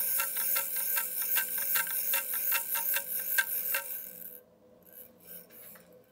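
Meinl Headed Spark Shaker, a small round shaker with a skin head, shaken in a steady rhythm of about five strokes a second. It stops about four seconds in, and only faint handling rustles follow.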